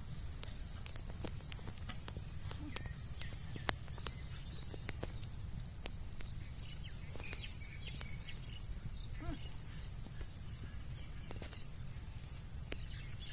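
Rural field ambience with insects: a steady high whine and a short pulsed chirp that repeats every two seconds or so. Scattered sharp clicks and a low rumble run underneath.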